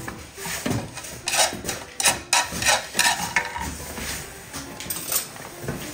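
Kitchen utensils knocking and scraping during food preparation: irregular sharp knocks about every half second, with a rubbing scrape between them.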